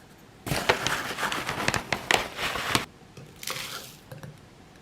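Plastic meal-replacement pouch crinkling as a scoop digs through the dry Huel Hot & Savory powder and tips it out. There is a dense run of crackly rustles for about two seconds, then a shorter, softer one near the end.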